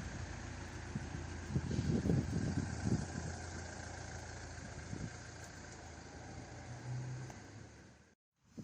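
A vehicle engine running steadily, with wind gusting on the microphone in the first few seconds. The sound cuts off abruptly near the end.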